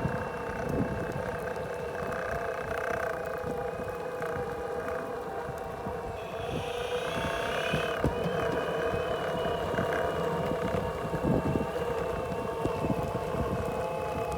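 Boosted Board Stealth electric skateboard motors whining steadily at several fixed pitches, with irregular clicks throughout: the clicking sound the board makes. A higher whine comes in briefly about halfway through.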